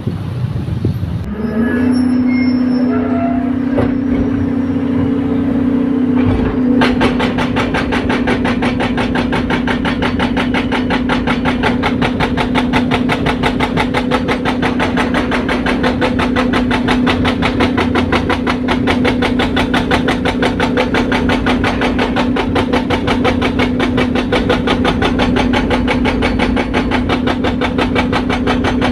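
Excavator engine rising to a steady high drone about a second and a half in. Then, from about seven seconds in, a hydraulic breaker hammers rapidly and continuously, chipping up road asphalt.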